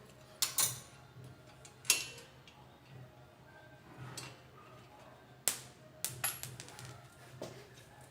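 Scattered sharp metallic clicks and clinks, about seven of them, as a nut is fitted onto the steering knuckle pinch bolt of a car's front suspension and metal tools are handled.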